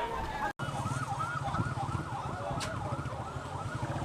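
Emergency vehicle siren. A slower wailing glide is followed, after a brief cut about half a second in, by a fast yelp warbling up and down about four times a second.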